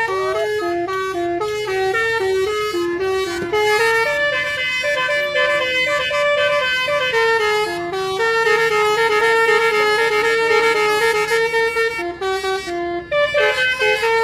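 Basuri telolet bus horn playing a melody: a run of loud, held horn notes with many overtones, stepping from pitch to pitch. The notes change quickly at first, are held longer in the middle, and break off briefly near the end before starting again.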